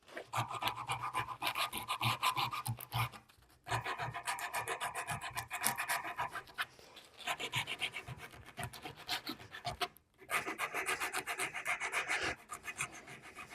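Abrasive paper rubbed by hand along a shaped wooden edge in quick back-and-forth strokes, blending the corners into a smooth round, with two short pauses about three and a half and ten seconds in.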